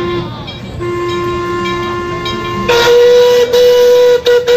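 Rio Grande steam locomotive's whistle blowing long held blasts: a lower note that breaks off briefly and resumes, then about two and a half seconds in a much louder, higher note with a few short breaks.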